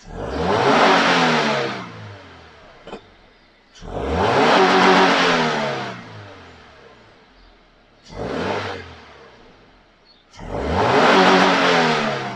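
Toyota 86's 2.0-litre flat-four engine revved four times from idle through an aftermarket Powerflow exhaust with quad tips. Each rev rises and falls in pitch over about two seconds, and the third is shorter.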